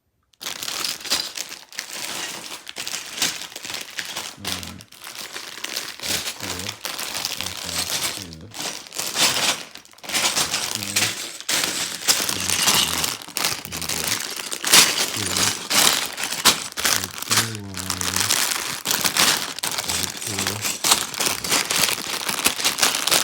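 Plastic Lego parts bags crinkling and rustling, handled and shuffled without a break as they are sorted.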